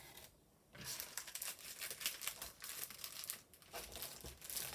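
Paper and plastic packaging crinkling and rustling in rapid irregular crackles as sticker packs and paper items are handled, after a brief quiet moment at the start.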